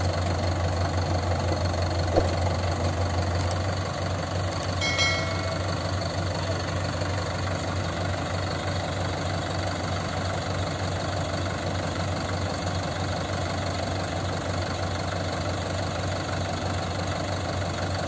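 Diesel engines of a Mahindra 585 DI tractor and a JCB 3DX backhoe loader running together at a steady low idle, easing slightly after a few seconds. There is a brief high squeak about five seconds in.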